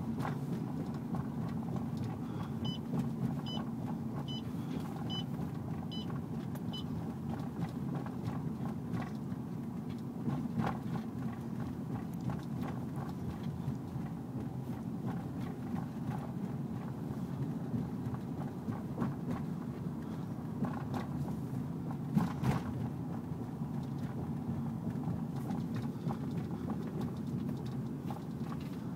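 Steady low rumble of a motor vehicle on the move, with a few faint ticks in the first few seconds and a brief louder bump about twenty-two seconds in.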